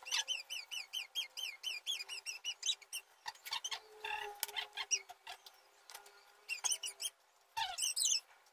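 Small bird chirping: a fast run of short, even chirps, about six a second, then scattered chirps and a quick burst near the end. A faint steady hum sits underneath.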